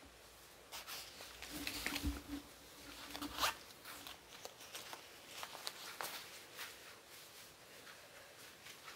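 Fabric rustling and swishing as a hoodie is pulled on over the head and straightened: a run of short scratchy rustles, busiest in the first three or four seconds, then lighter and sparser.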